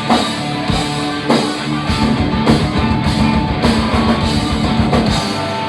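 Rock band playing live: distorted electric guitars over a drum kit, with drum and cymbal hits on a steady beat about every 0.6 seconds.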